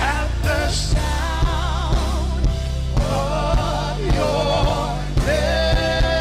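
Gospel worship music: a melody sung with vibrato over bass and a steady drum beat of about two hits a second.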